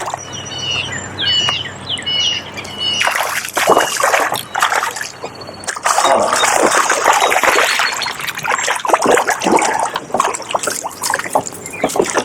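Water splashing and trickling close by, loudest in the second half. A bird gives a quick run of about five repeated falling chirps in the first two seconds.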